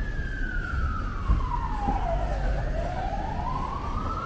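Emergency vehicle siren sounding a slow wail: the pitch falls over about two and a half seconds, then rises again. A steady low rumble of street traffic runs underneath.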